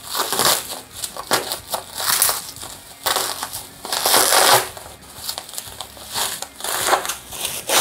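Bubble wrap crinkling and rustling as it is handled and pulled off a wrapped item, in irregular bursts with a longer, louder stretch about halfway through.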